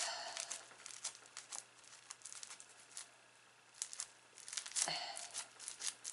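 Slime being squished and pulled in the hands, giving off crinkly crackles and snaps; the crackling thins out in the middle and picks up again near the end.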